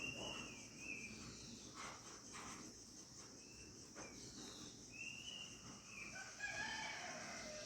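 Faint birdsong at dusk: short high chirps and whistles scattered throughout as the birds settle to roost, over a steady high-pitched insect drone. Near the end a longer, lower call with several tones layered together joins in.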